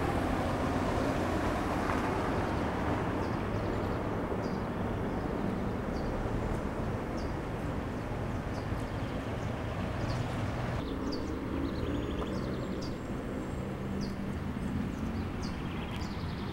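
Steady outdoor background noise: a low rumble with scattered faint, short high ticks. It changes abruptly about eleven seconds in.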